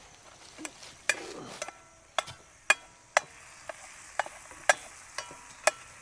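A utensil scraping and knocking in a cast iron skillet, about two strokes a second, stirring ground sausage that is sizzling as it browns.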